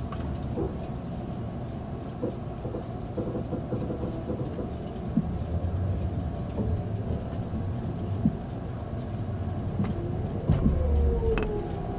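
Electric express train running, heard from on board: a steady rumble of wheels on rail with scattered knocks, then near the end a louder stretch and a whine that falls in pitch.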